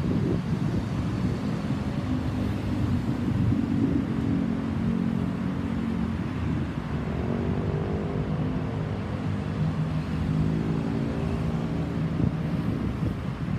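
Boeing 737-800 with CFM56-7B turbofans passing high overhead: a steady, distant jet rumble with a few faint tones that bend slowly in pitch around the middle.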